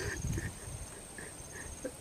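Outdoor ambience of insects and small animal calls: high, rapid insect trills in short runs over a steady high insect drone, with several short chirps.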